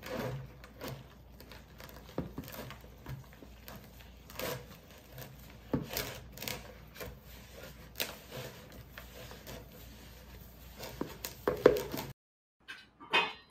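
Hands mixing flour and warm water into chapati dough in a plastic bowl, with irregular light knocks and scrapes as a plastic flour container is tipped and tapped over the bowl. The sound cuts off suddenly near the end.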